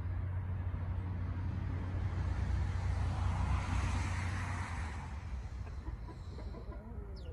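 A steady low rumble with a broad rushing noise that swells to a peak about four seconds in and then eases off. Near the end come a few faint clucks from New Hampshire Red chickens.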